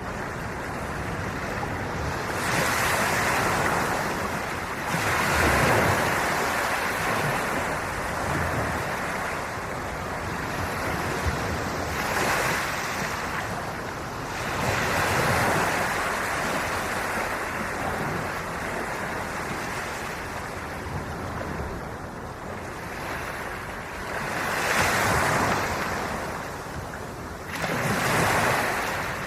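Ocean surf on a beach: waves breaking and washing in continuously, rising to a louder rush every few seconds as each wave comes in and then falling back.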